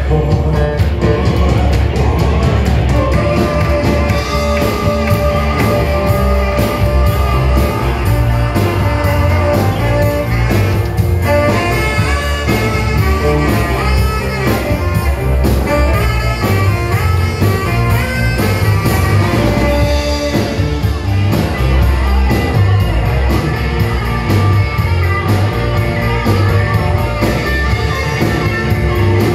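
Live band playing rock music: drums, bass, electric guitar and horns together, with a steady beat and some long held notes.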